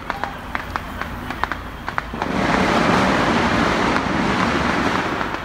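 Scattered sharp firecracker pops over road traffic. About two seconds in, a louder rushing noise swells up for around three seconds and then fades.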